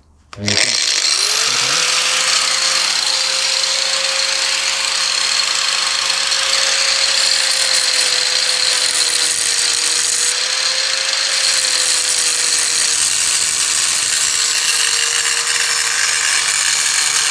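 Angle grinder spinning up about half a second in, then cutting steadily through a seized bolt: a continuous loud grinding with a high whine.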